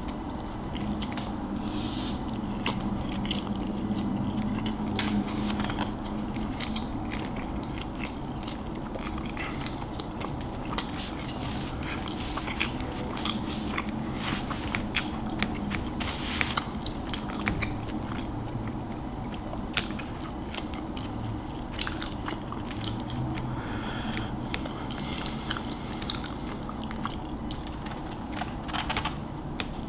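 A person chewing and eating close to the microphone, with many irregular wet mouth clicks and smacks over a steady low hum.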